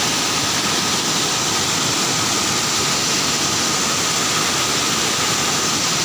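Loud, steady rush of a waterfall, white water pouring and churning over rock ledges.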